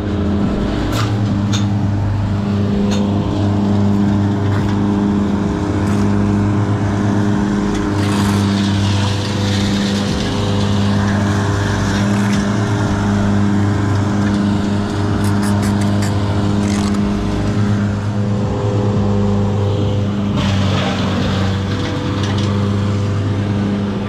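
A small engine running steadily, its low drone pulsing at a regular beat, with scattered clicks and knocks over it.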